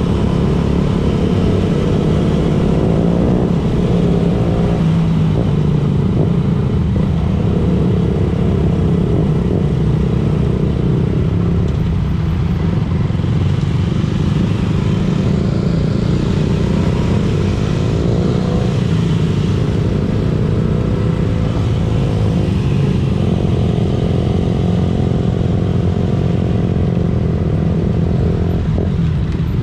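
Motorcycle engine running under way, its note rising and falling several times as the throttle opens and closes.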